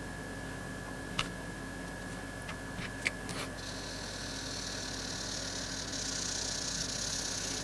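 Felt-tip marker rubbing back and forth on paper as a drawing is coloured in, starting about halfway through and growing stronger near the end. Before it there are two sharp clicks, with a steady hum underneath throughout.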